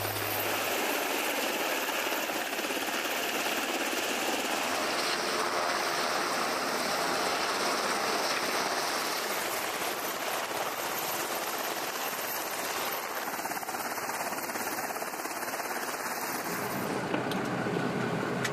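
MH-60 Seahawk helicopter hovering, its rotor and turbine giving a steady noise.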